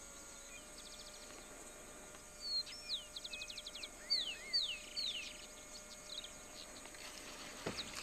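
Birds calling: several short down-slurred whistled notes and quick trills, about two and a half to five and a half seconds in.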